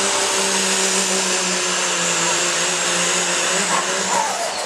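Super modified 4x4 diesel pulling truck's engine at full power under load as it drags the pulling sled, a loud steady howl with a thin high whine above it. The pitch sags slightly, and the steady note breaks up about four seconds in.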